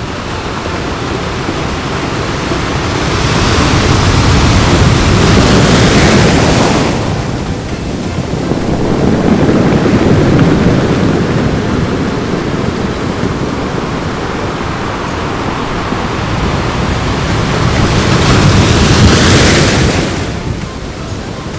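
Ocean surf breaking on a beach, rising and falling in slow swells. Two waves break loudly with a hiss, about four seconds in and again near the end, with a softer surge between them.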